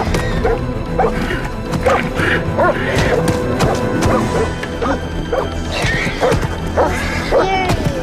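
Dramatic film score music, with a dog barking in short repeated barks and a few sudden crashing thuds.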